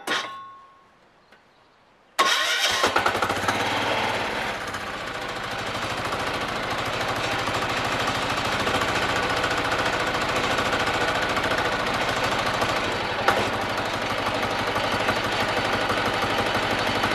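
Small engine on a homemade bandsaw mill starts about two seconds in at full throttle and keeps running steadily, driving the saw through its clutch on a first start-up. One sharp click about thirteen seconds in.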